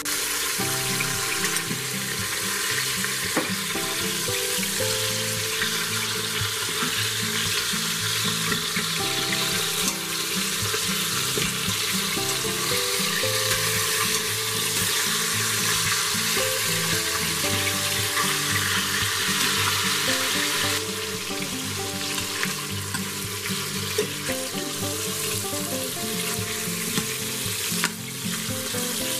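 Chicken pieces searing in hot olive oil in an Instant Pot's stainless steel inner pot, sizzling steadily throughout, with a few sharp clicks from the tongs. Background music with changing notes plays underneath.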